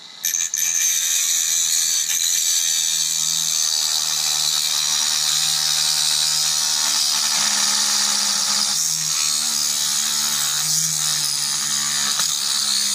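Handheld rotary tool with a cut-off disc running at speed and cutting through a plastic moulding: a steady, high-pitched whine whose pitch sags and wavers now and then in the second half as the disc bites into the plastic.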